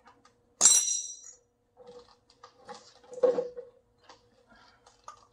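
Hand tools working the cotter pin at a trailer wheel hub's castle nut: a sharp metallic clink with a brief ring about half a second in, then a run of small clicks and taps, the loudest about three seconds in.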